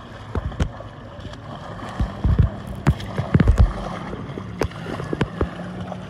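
A swimmer's arm strokes splashing in sea water, with sharp splashes and low thumps at uneven intervals. The splashes are most frequent in the middle.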